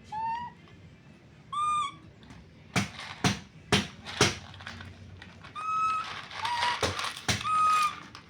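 A baby monkey giving short, high-pitched squeaking calls, about five of them, each under half a second. Between the calls there are several sharp clicks and a brief rustle.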